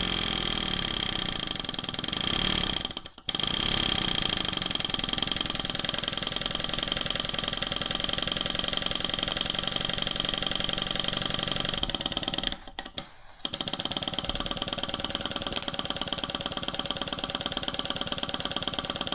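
A small model live-steam engine, a single-cylinder vertical kit engine, running fast under full boiler pressure with a rapid, even mechanical beat and rattle. It is rebuilt with its steam and exhaust ports now correctly connected, and it runs properly. The sound drops out briefly twice, about three seconds in and again around two-thirds of the way through.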